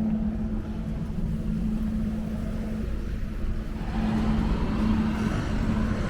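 A steady motor hum over a low rumble, with a brighter rushing sound coming in about four seconds in.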